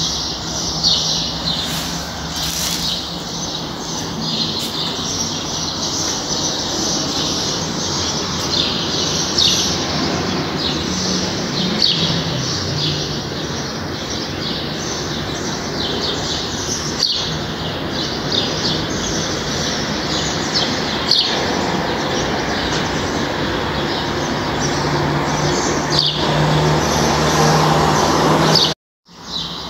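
Small birds chirping over and over in short, high calls, over a steady background hum. The sound breaks off for a moment near the end.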